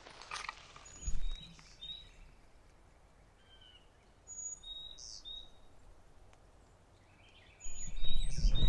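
Wild songbirds singing: short high chirps and whistled notes scattered through, with a quick run of stepped notes near the end. A few footsteps on the roadside verge in the first second or so, and a low rumble starting near the end.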